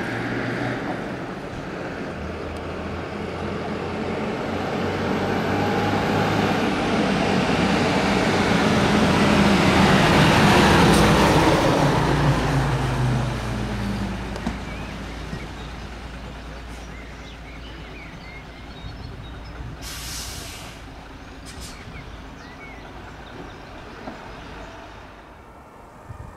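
Heavy fire engine driving past: its diesel engine grows louder to a peak about ten seconds in, then drops in pitch and fades away. A brief hiss follows about twenty seconds in.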